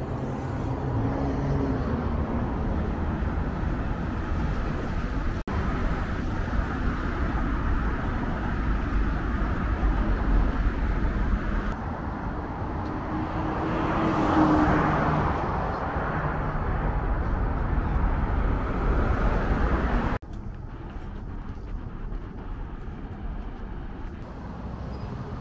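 Street traffic: a steady rumble of cars and tyres on a city road, with one vehicle passing louder about halfway through. The sound changes abruptly twice, and is quieter after the second change.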